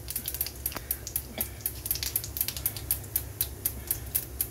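Cumin seeds crackling in hot oil in a wok during tempering, with small irregular pops several times a second over a low steady hum.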